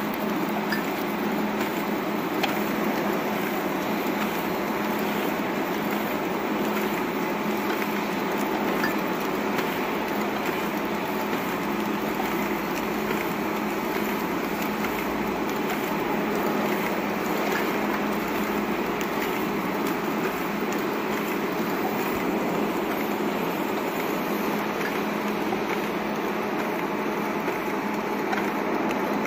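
Automatic card feeder and top-labeling machine running: a steady whir of its conveyor and feeder motors, with a constant hum and scattered faint clicks.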